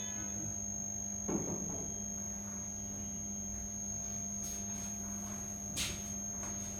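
Steady electrical mains hum with a constant high whine over it. A brief soft thump comes a little over a second in, and a short sharp click near the end.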